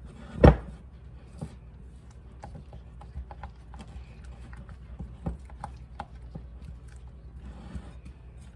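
A mixing utensil stirring thick powdered-sugar icing in a bowl: one loud knock against the bowl about half a second in, then scattered lighter clicks and taps.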